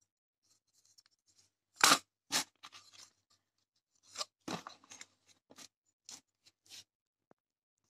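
Cardboard box and a circuit board being handled: sharp scrapes and rustles of cardboard, the two loudest about two seconds in, then a run of shorter scrapes and taps.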